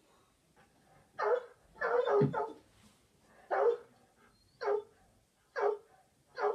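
Recorded dog barking played by an Amazon Alexa smart speaker on the "Alexa, bark" command: a series of about seven short, sharp barks, two or three close together early on and then single barks about a second apart.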